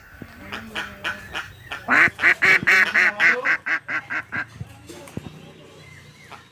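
Duck quacking: a few softer quacks, then a fast loud run of about a dozen quacks in quick succession that slows and fades out.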